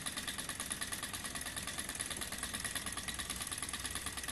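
Beam-type hot-air Stirling engine model running steadily, its rocking beam, linkages and flywheel making a fast, even mechanical patter.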